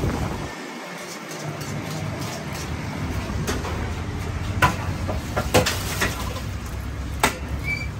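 A steady low rumble of background noise, with three or four sharp knocks or clatters in the second half, the first about four and a half seconds in.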